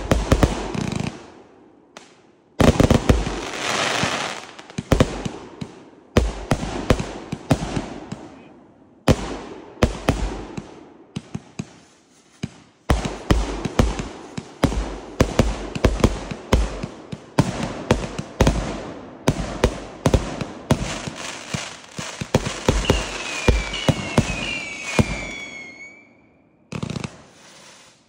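California King consumer firework cake firing in rapid volleys: sharp shots and bursts with crackle, in several runs broken by brief pauses. Near the end a few falling whistles sound over the shots, then it goes almost quiet.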